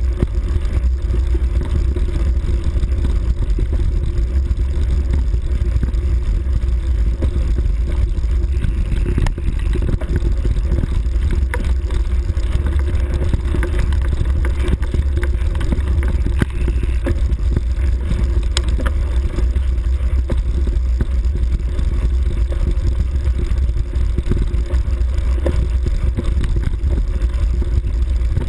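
Steady low rumble of a vehicle carrying the camera along a grassy track, with scattered small knocks and rattles.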